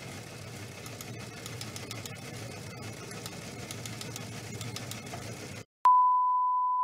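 A steady noisy rumble with scattered clicks stops abruptly. After a brief gap, a single steady beep starts near the end: the television colour-bar test-pattern reference tone.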